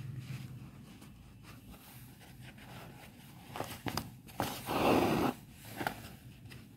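Quiet handling sounds of hand embroidery on a hoop: a few light clicks and one louder rasp of about a second, near five seconds in, as needle and thread are drawn through the cloth.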